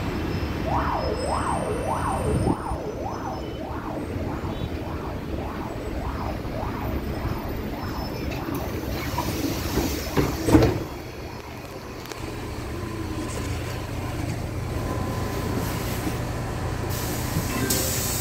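Inside a LiAZ-6213.22 articulated city bus: the bus rumbles, with a repeated warbling chirp about twice a second for the first nine seconds. A loud thump comes about ten seconds in, and after it a steadier low drone.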